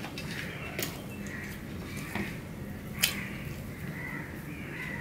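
Soft eating sounds: fingers mixing rice on a stainless steel plate, with chewing. A couple of sharp clicks come against the plate, just under a second in and, loudest, about three seconds in. Short faint calls recur in the background about once a second.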